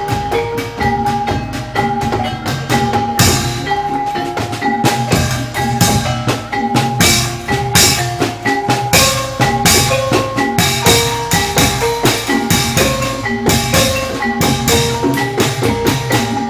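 Live Javanese incling (jaranan) ensemble music: a fast, repeating melody on tuned percussion over steady drumming.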